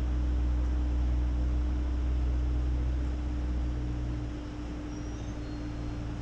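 City street traffic: a low engine rumble with a steady hum, the rumble easing off about four and a half seconds in.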